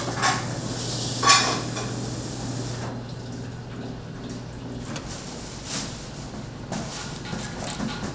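Dishes and metal utensils clattering, with several sharp knocks, the loudest about a second in, over a steady low hum.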